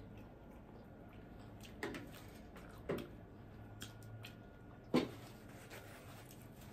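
A person chewing a mouthful of spicy instant noodles: a few short wet mouth sounds spaced about a second apart, the loudest near the end, over a faint steady hum.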